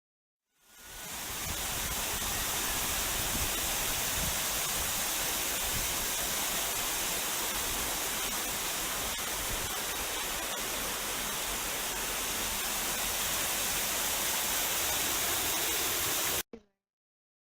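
Steady rush of falling water, as from a waterfall, fading in about half a second in and cutting off suddenly near the end.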